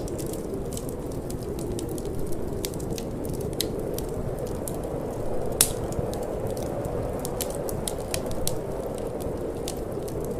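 Wood fire crackling with irregular sharp pops, one louder pop about halfway through, over a steady low rush of wind.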